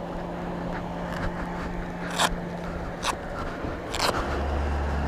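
Motorcycle engine running at low speed with a steady low hum, broken by a few sharp clicks or knocks about two, three and four seconds in; a deeper, louder engine hum comes in near the end.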